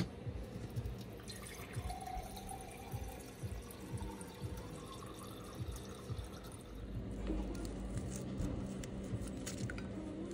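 Kitchen mixer tap running water into a drinking glass, filling it, in the second half. Before that, small clinks and knocks of the glass being handled over a stainless steel sink.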